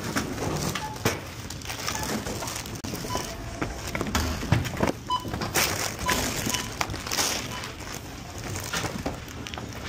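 Checkout barcode scanner giving several short beeps as items are scanned, over clatter from the goods being handled and store background noise.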